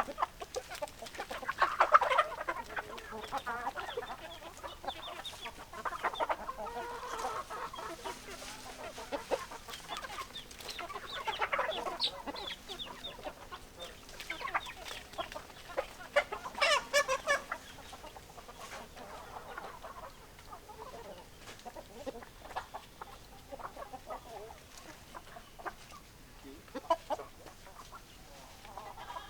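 Hens clucking, with louder bursts of calls every few seconds and softer clucks in between.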